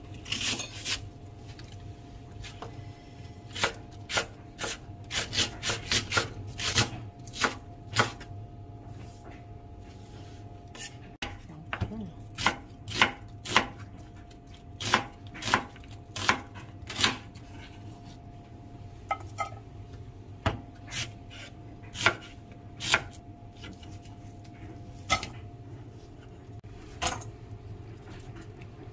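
Kitchen knife slicing an onion on a wooden cutting board: sharp, irregular knife strikes, a few a second in runs. A steady low hum runs underneath.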